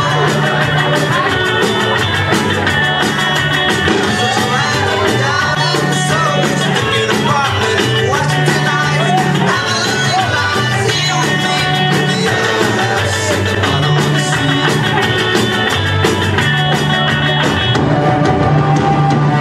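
Music with singing over a repeating bass line.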